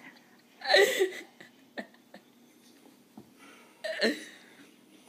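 Two short vocal sounds from a person, about three seconds apart, with a low background between them.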